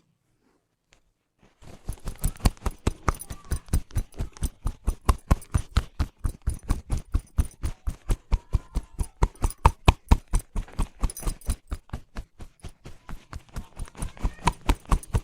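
Percussive head massage: hands striking the head in a rapid, even rhythm of about five slaps a second, each with a dull thud, starting about a second and a half in.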